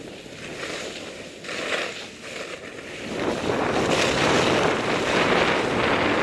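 Skis running down a steep groomed piste: edges hissing and scraping over the snow through the turns, with wind rushing over the helmet-mounted microphone. Two short swells come in the first two seconds, then it grows louder and continuous from about three seconds in.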